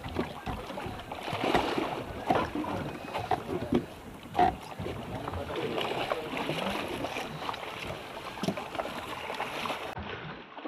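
Water splashing as a hooked sailfish thrashes at the surface beside a small boat, mixed with irregular knocks and rustling from handling at the gunwale.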